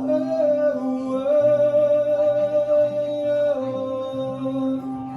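Solo live song: a male voice holds one long wordless note that ends about three and a half seconds in, over steadily ringing acoustic guitar played in a Hawaiian slack-key style.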